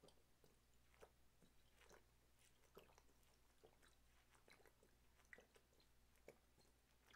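Faint gulping and swallowing from someone downing a drink straight from a bottle in one go: short, irregular gulps, one or two a second.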